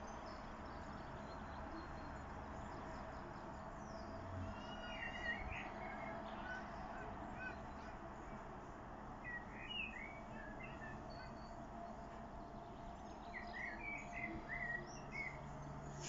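Eurasian blackbird singing three short fluty warbled phrases with pauses of a few seconds between them, over a steady background hum.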